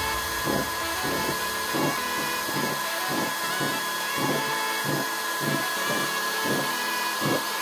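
Homemade blower-fed waste oil stove burning, a steady rushing hiss of air and flame with a faint regular pulse about twice a second.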